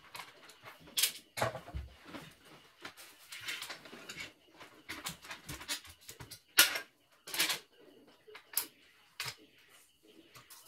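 Irregular clicks, taps and light scraping of a screwdriver and metal parts as a portable embroidery machine is taken apart by hand, the sharpest knock coming a little past halfway.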